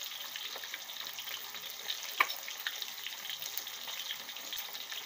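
Barramundi frying in hot oil in a steel wok: a steady sizzle full of small crackles, with a sharper pop about two seconds in.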